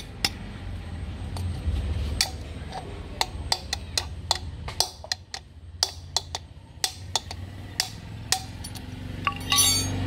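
A hammer striking a steel drift rod set in a motorcycle front wheel hub, driving out the wheel bearing: irregular sharp metallic clinks with a little ring, more than a dozen, with a quick run of strikes near the end.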